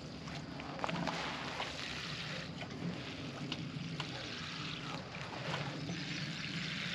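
Liquid fertilizer solution being poured onto garden plants: a steady pouring sound that swells about a second in, with a few light knocks.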